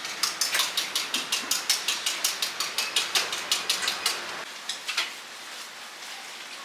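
Rapid, rhythmic clacking of hard strikes, about six a second for some four seconds, then a few scattered strikes before it stops.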